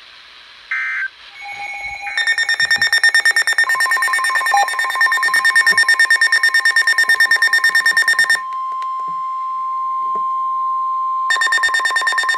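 Weather radio alert tones between two warnings: a short buzzy data burst, then a rapidly pulsing electronic alarm beep, then the steady single-pitch NOAA Weather Radio 1050 Hz warning tone on its own for about three seconds. The pulsing alarm comes back near the end.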